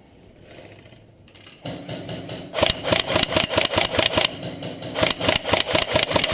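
Airsoft electric gun (AEG) firing a long full-auto burst: a rapid, even stream of shots over the motor and gearbox whir. It starts about a second and a half in and gets louder about a second later.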